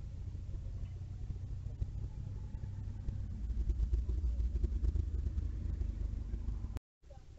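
Jeep Wrangler driving past, a low engine rumble growing louder as it comes close. The sound cuts off abruptly near the end.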